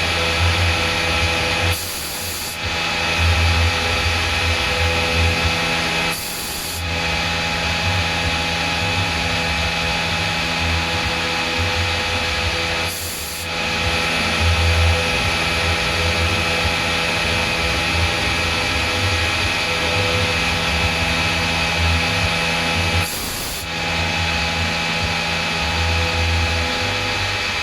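CNC machine cutting a dart barrel, running steadily with a low hum and several steady whining tones. Four times there is a short break of about half a second where the hum drops and a high hiss takes over.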